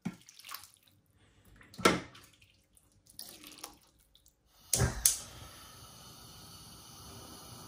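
Metal ladle scooping thin stew liquid out of a slow cooker and pouring it into a frying pan: splashing and pouring with a few sharp clinks of metal on the pots. About five seconds in, a steady hiss begins.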